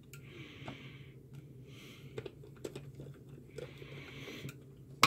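Faint handling noises from a plastic multimeter case being worked by hand: soft scraping three times and a few light clicks, ending in one sharp click, over a low steady hum.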